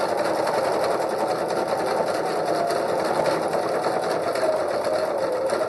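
Electric sewing machine running steadily, sewing a zigzag stitch forward through fabric, with rapid, even needle strokes.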